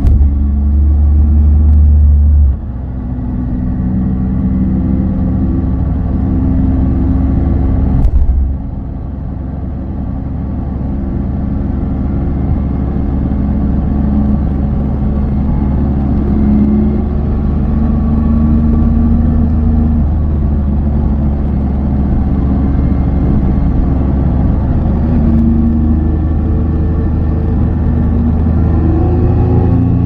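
Triumph Tiger 800 XCA's three-cylinder engine running under way. The revs drop sharply twice, a few seconds in and again about eight seconds in, then build back steadily.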